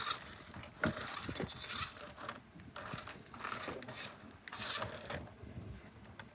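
Crinkling and rustling of packaging being handled, in a series of short irregular bursts.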